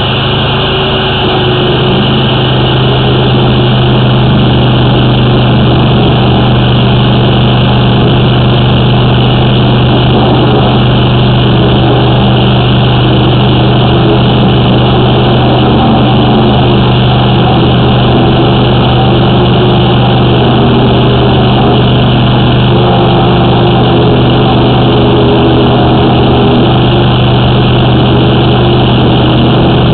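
High-pressure drain jetter's engine and pump running steadily, a loud even drone with a low hum, rising a little over the first few seconds.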